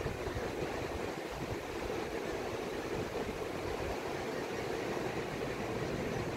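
Steady rush of distant surf breaking along the beach, with gusts of wind buffeting the microphone underneath.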